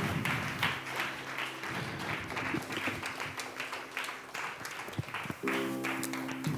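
Audience applauding with scattered claps over a low sustained musical drone. The drone swells with more tones near the end.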